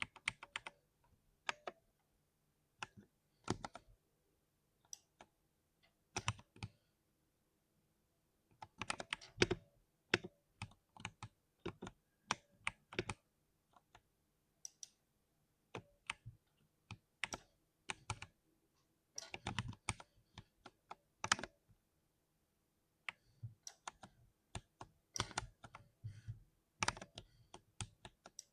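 Keys typed on a 60% mechanical keyboard: sharp key clicks in irregular flurries with short pauses between them. The densest runs come around a third of the way in and again just past the middle.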